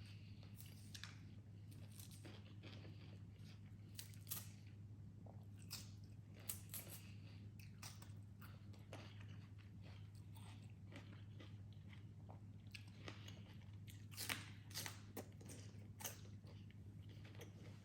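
Faint close-up mouth sounds of someone chewing a crunchy spicy salmon salad: irregular small crunches and wet clicks, a few louder ones about 14 to 16 seconds in, over a steady low hum.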